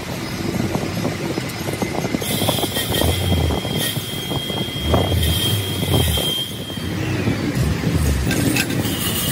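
Crankshaft grinding machine running, with metallic clanks and rattles as the crankshaft is turned in its chucks and the hoist chain is handled. A high steady whine comes in about two seconds in and stops about four seconds later.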